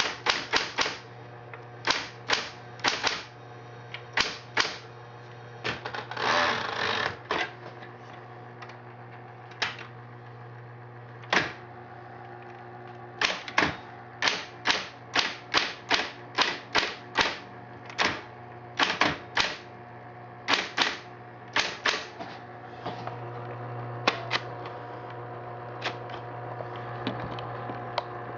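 Smith Corona Electric 12 electric typewriter being typed on: irregular runs of sharp keystrike clacks over the steady hum of its running motor. About six seconds in there is a longer rasping noise lasting about a second, and the keystrokes thin out near the end while the hum carries on.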